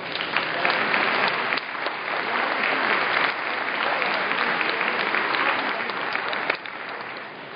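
Audience applauding. The applause comes up quickly at the start and dies away near the end.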